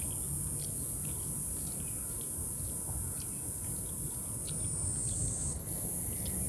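Cicadas shrilling in a steady, high-pitched chorus. The pitch dips briefly and then jumps back up about five and a half seconds in.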